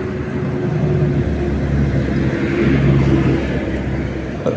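Road traffic: a motor vehicle passing with a steady engine hum and tyre noise, louder around the middle and easing off near the end.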